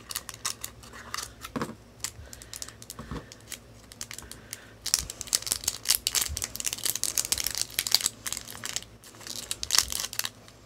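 Clear plastic packet around a small toy sticker being torn open and crinkled by hand: scattered crackles at first, turning into dense crinkling from about halfway through and again near the end.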